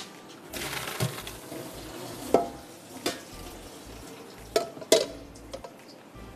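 Cooked pasta drained: hot water rushes out of the pot through a strainer for about two seconds, then cookware clanks sharply four times.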